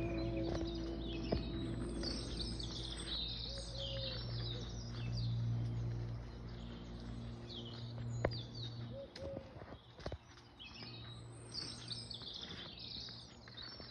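Birds chirping and singing, many short calls coming and going, over a steady low rumble.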